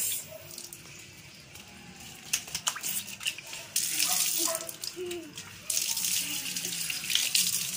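Water spraying from an outdoor wall tap as a child washes her hands under it. A few light clicks come first; then the tap runs with a steady splashing hiss from about four seconds in, dipping briefly near the end before running on.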